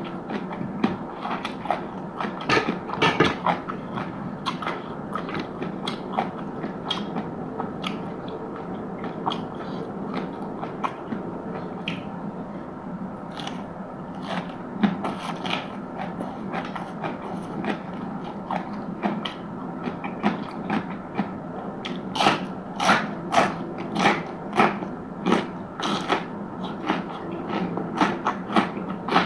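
A person chewing and biting crunchy food close to the microphone, with sharp crunches throughout. About two-thirds of the way through comes a run of louder, evenly paced crunching bites, about two a second.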